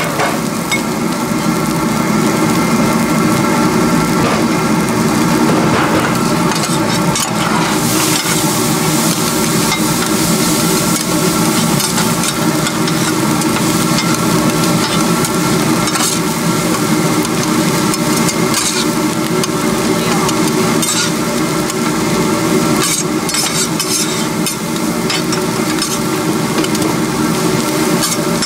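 A big batch of pork fried rice being stir-fried: a metal spatula scrapes and clanks against the pan over a steady sizzle, with sharper scrapes coming in clusters through the second half. A steady hum of several even tones runs underneath.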